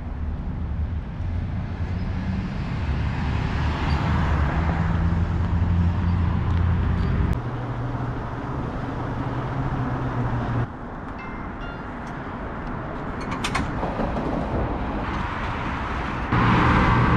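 Street and transit ambience in abrupt cuts: a steady low rumble of road traffic, then a quieter stretch with a few clicks, then the hum of a rail car standing with its doors open near the end.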